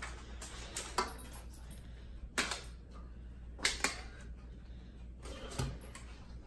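Metal kitchen tongs clinking and scraping against a stainless steel colander and pan as linguine is pulled from the strainer into the pan. About five sharp clinks at irregular intervals.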